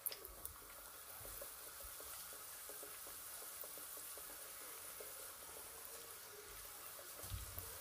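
Samosas deep-frying in hot oil: a faint, steady sizzle, with a soft low bump near the end.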